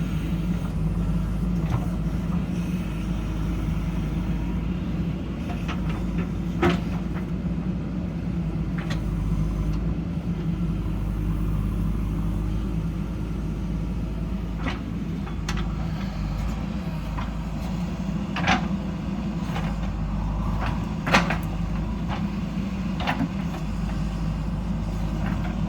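JCB backhoe loader's diesel engine running steadily under work, with a few sharp knocks now and then, the loudest about 21 seconds in.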